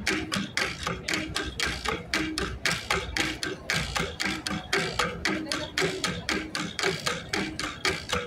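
Flat gongs beaten in a steady rhythm, about four to five strikes a second, as accompaniment to a Cordillera dance.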